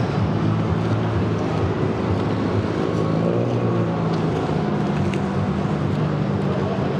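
An engine idling steadily, its low hum holding an even pitch.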